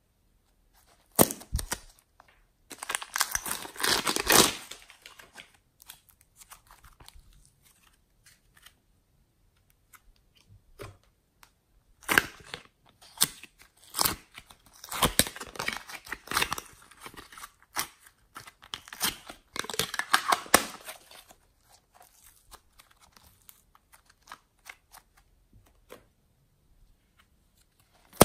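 Plastic crinkling and crackling as soft modelling clay is handled in plastic packaging: a piping bag squeezed and clay peeled out of a plastic tub. It comes in bursts, one near the start and a longer one in the middle, with quiet gaps between.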